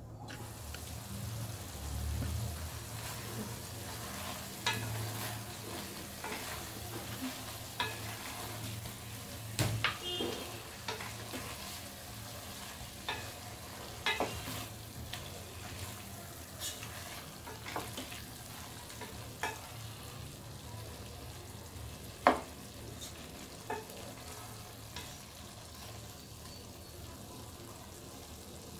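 Spatula stirring cooked pumpkin curry in a stainless steel pot, with scrapes and scattered sharp clacks against the metal every second or two, over a steady low sizzle. The loudest clack comes near the end.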